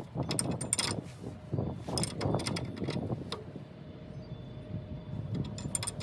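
Hand wrench clinking and scraping metal on metal as bolts are worked at a pickup truck's front wheel hub, in short bursts of clicks about a second in, around two seconds and near the end.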